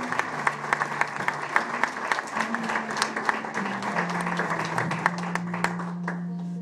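Audience applauding, the clapping thinning out and stopping near the end. Background music of held low notes, changing every second or two, plays underneath.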